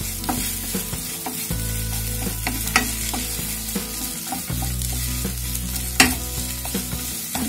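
Wooden spatula stirring, pressing and scraping a mashed potato and beetroot masala filling in a non-stick kadhai, with light sizzling of oil and repeated knocks of the spatula on the pan, two of them sharper, a little under three seconds in and about six seconds in. A steady low hum runs underneath.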